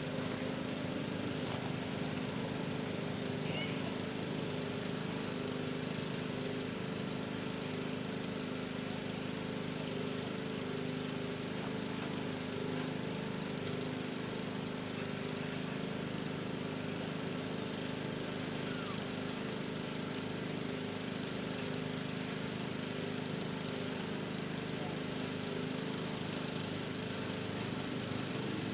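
A small engine running steadily: a low, even drone that neither rises nor falls.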